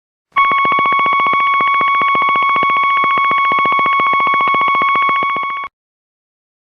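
Synthesized electronic machine-style sound effect: a steady, high beeping tone buzzing with a fast, even pulse. It runs for about five seconds, fades a little and cuts off suddenly.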